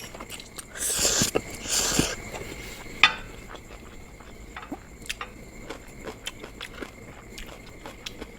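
Close-up eating sounds of mixed instant noodles: two noisy half-second slurps about a second apart near the start, a sharp click, then quiet chewing with small scattered ticks.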